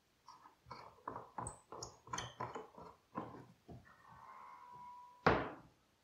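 The metal overarm dust-collection arm of a table saw being handled and swung aside: a run of clanks and knocks, a short steady squeak, then one loud thump a little past five seconds in as it comes to rest.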